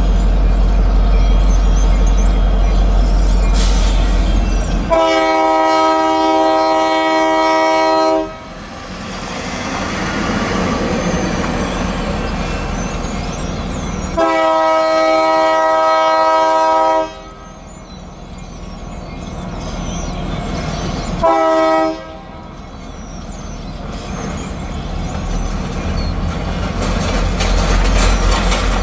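Freight locomotive's multi-chime air horn sounding two long blasts and then a short one, the opening of the long-long-short-long grade-crossing signal. A low rumble comes first, and between the blasts the train's noise grows louder as it approaches.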